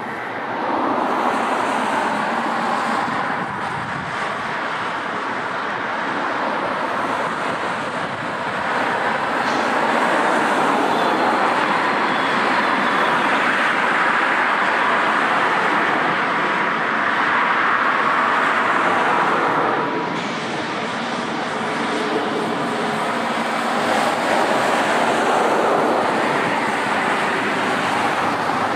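Jet airliner engines running, a loud steady rushing noise with a faint whine, swelling and easing several times.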